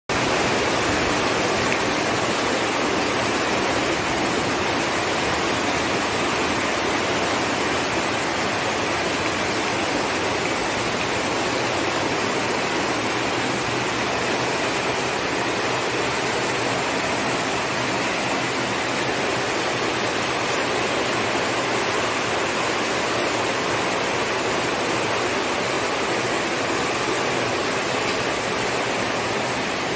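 Heavy downpour: a steady hiss of rain falling on a water-covered paved driveway and garden plants.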